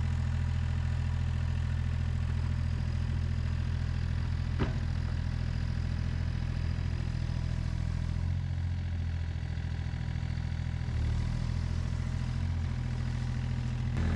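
A compact construction machine's diesel engine idling steadily, with one sharp click about four and a half seconds in.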